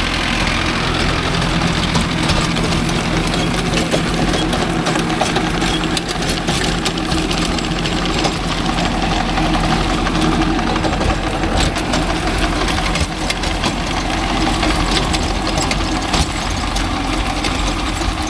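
Mahindra 605 tractor's diesel engine running steadily at a constant pitch, driving a rotavator through the soil.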